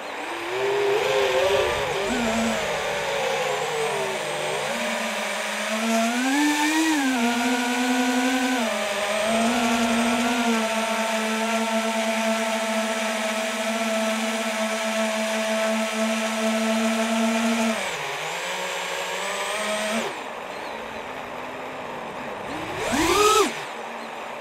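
FPV quadcopter's electric motors whining through the onboard camera's microphone, the pitch rising and falling with the throttle, held steady for several seconds in the middle, dropping off near the end, then a quick rising and falling burst of throttle, over a rush of air.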